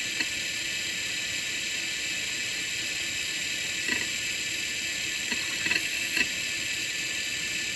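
Quantum ProDrive LPS 105S hard drive running with its cover off: a steady whir and high whine from the spinning platter, with the head actuator seeking in a few short clicks about four seconds in and again between five and six seconds. The drive has major bad sector issues.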